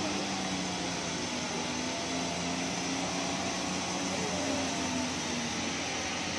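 Loaded truck's diesel engine working slowly uphill, a low wavering drone, over a steady hiss of rain on the wet road.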